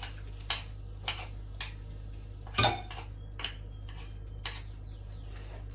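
A metal spoon clinking and scraping against a dish while scooping meat filling, about ten short clicks, with one louder clatter about two and a half seconds in.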